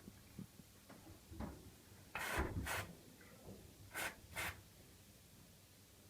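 Lubricant, EFELE UNI-S hybrid silicone grease, sprayed from an aerosol can onto a squeaking door closer in four short hissing bursts, the first the longest, about two seconds in.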